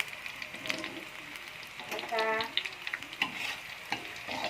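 Bumbu, a spice paste, frying in hot oil in a pan: a steady sizzle with quick small crackles.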